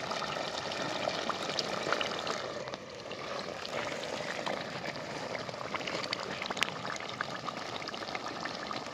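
Thick mutton curry sizzling and bubbling in a hot clay pot just lifted off a wood-fired chulha: a steady hiss scattered with small pops. The earthen pot holds its heat, so the meat keeps cooking off the fire.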